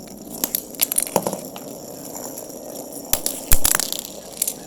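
Several toy battle tops spinning and clashing together, a steady whir broken by sharp clicks of collisions and one heavy knock about three and a half seconds in.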